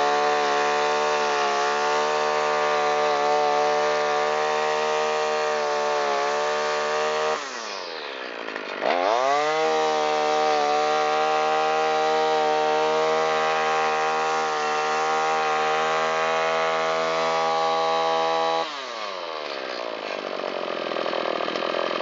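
Shindaiwa T272X string trimmer's small two-stroke engine running at full throttle after a piston and ring replacement and running well. About seven seconds in it is let off and quickly revved back up. Near the end it drops back to idle.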